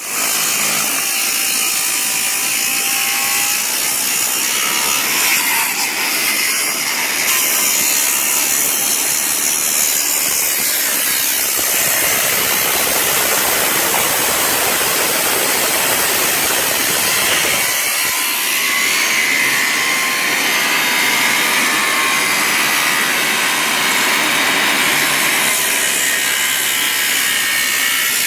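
Angle grinder cutting into a floor: a loud, steady abrasive noise with a high motor whine running through it. For several seconds midway the noise turns coarser and deeper, then the whine comes back clearer.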